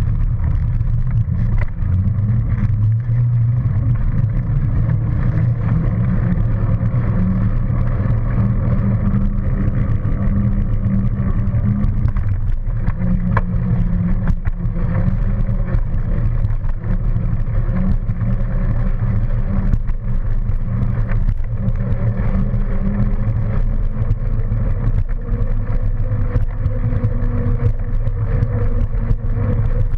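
Steady low rumble of wind buffeting the microphone, with rolling noise, on a camera mounted low on a moving bike or similar ride, plus scattered small rattles.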